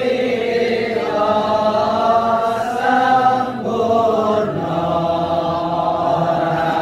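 A group of voices chanting together in long, held melodic phrases, gliding from note to note without a break, in the manner of Islamic devotional chanting (sholawat).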